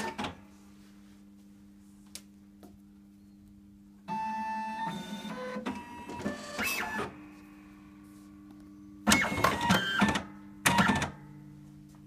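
Fastback 11e thermal binding machine running its binding cycle over a low steady hum: a click at the start, then a motor whirring with shifting pitch for about three seconds, and near the end two loud, short mechanical bursts.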